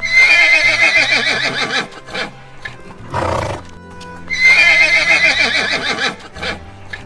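A horse whinnying twice, each a long neigh of about two seconds, with a short noisy breath between them, over background music.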